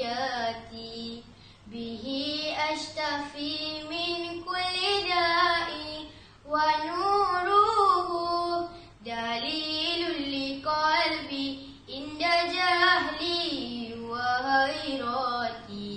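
A young girl singing a nazam, a Malay chanted poem on the Quran, solo and unaccompanied. She sings long phrases with bending pitch and pauses briefly between them.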